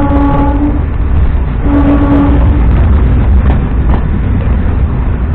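MEMU electric train running with a steady low rumble, while a train horn sounds twice: a held blast that stops just under a second in, then a shorter one about two seconds in.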